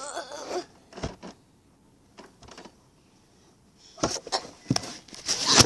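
Knocks and clattering in a small room, a few at first, then a dense burst from about four seconds in that ends in a loud bang: a pretend crash. A short voice sound comes at the very start.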